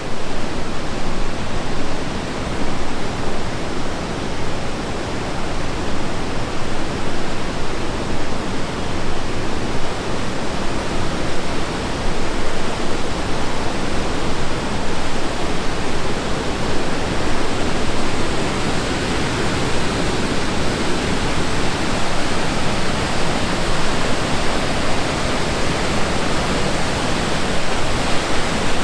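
Rushing water of the Tallulah River's falls and rapids, a loud, steady, unbroken rush.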